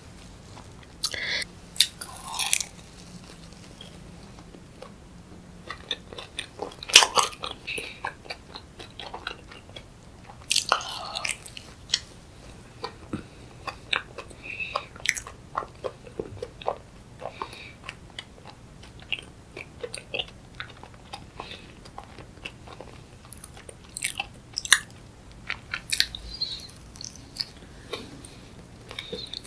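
A person biting and chewing a strawberry and fresh-cream dessert, making many short, irregular mouth clicks and smacks, with louder bites about seven, eleven and twenty-four seconds in.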